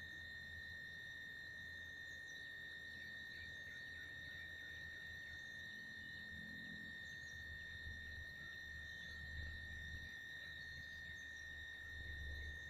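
Faint, steady, high-pitched drone of insects, one unbroken tone, with a low rumble of wind or handling underneath.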